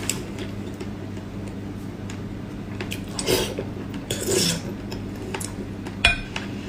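Mukbang eating sounds from braised pork belly: two short, wet mouth noises around the middle, then a sharp clack of a utensil against the bowl near the end, over a steady low electrical hum.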